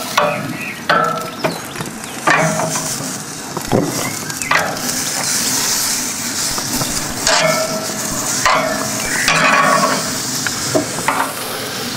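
Lamb T-bone steaks sizzling on a hot gas grill grate, a steady hiss of searing fat and meat. Metal tongs clink and scrape against the grate several times as the steaks are turned and set down.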